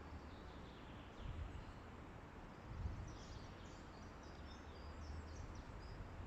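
Wind buffeting the microphone as a low rumble that swells in gusts, with a small bird singing a quick run of high chirps in the middle.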